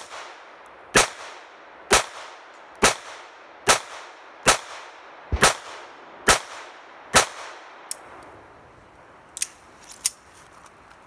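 Phoenix Arms HP22A semi-automatic .22 pocket pistol fired in a steady string, a sharp crack a little under once a second, about nine shots in all. Near the end come a few light metallic clicks as the pistol is handled.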